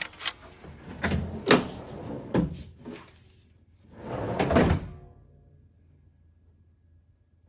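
A large DIY pull-out drawer on slide rails being worked: several short knocks in the first few seconds, then one longer rolling slide of about a second near the middle.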